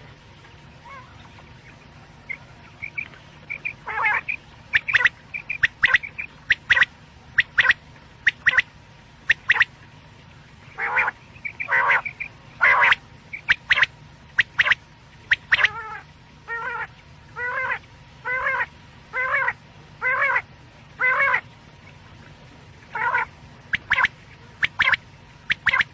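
Quail calling over and over in short, sharp notes; from about two-thirds of the way in, the calls come in an even run of roughly one every 0.8 seconds. A low steady hum lies underneath.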